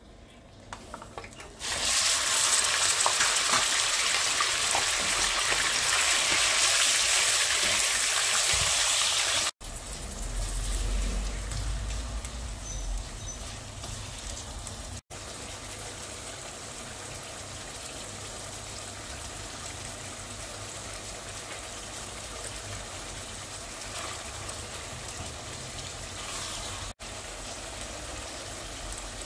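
Raw minced meat hitting hot oil in a pot and sizzling loudly for about eight seconds. After a few abrupt cuts, a quieter steady sizzling and bubbling follows as the mince cooks in its released liquid.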